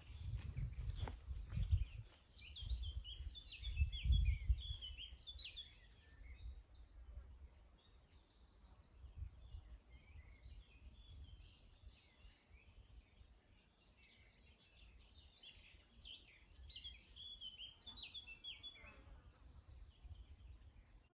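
Wild birds singing, a steady run of quick high chirps and trills, with a low rumble on the microphone during the first few seconds.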